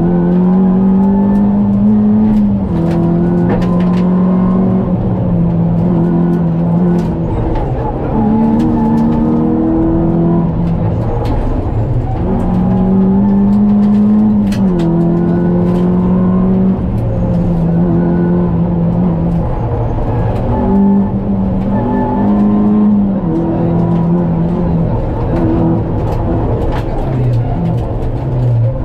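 Opel Astra GSi rally car's four-cylinder engine heard from inside the cabin, driven hard on a stage. The revs climb and drop repeatedly as the driver works through the gears, over steady road noise and occasional sharp knocks.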